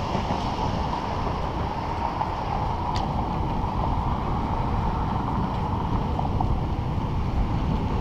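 Steady wind rushing over the microphone, mixed with tyre noise, from a bicycle ridden along a concrete sidewalk. There is one faint click about three seconds in.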